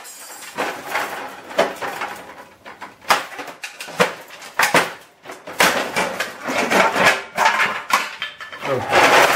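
Irregular knocks and metallic clatter from a printer's steel and plastic housing being broken apart, with a louder rattling burst near the end.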